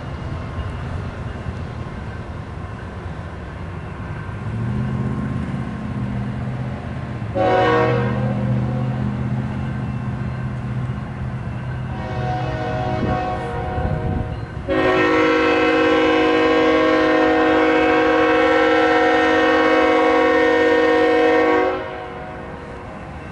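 Diesel freight locomotive horn blowing several notes at once: a short blast about seven seconds in, then a long blast of about seven seconds, cut off sharply. Under it runs the low, steady drone of the approaching train.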